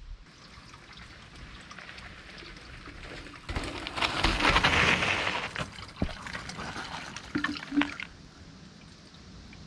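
Water trickling and splashing at a small forest spring, louder and rougher for a few seconds in the middle, with a couple of short gurgles near the end.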